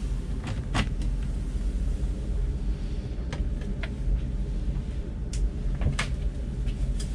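Wooden galley cupboard doors being opened, their plastic door catches clicking sharply several times, over a steady low rumble.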